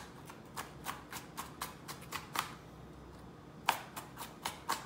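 Small kitchen knife chopping onion on a plastic cutting board: quick knocks about four a second, a pause of about a second past the middle, then more chops.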